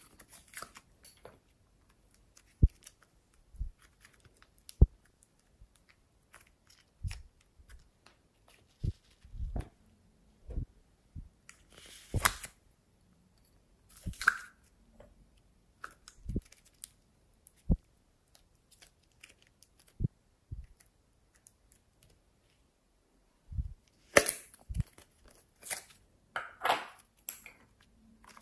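Slime and putty squeezed and kneaded by hand: irregular sticky pops and clicks with short crackling squishes, and a cluster of louder squishes near the end. Plastic toy eggs click as they are pried open.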